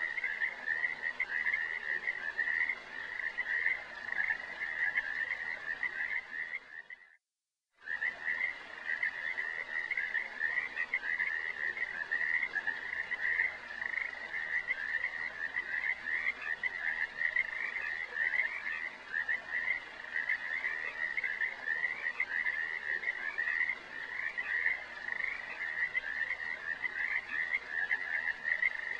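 A dense animal chorus of high, rapidly pulsing calls, all near one pitch, which cuts out for under a second about seven seconds in and then resumes.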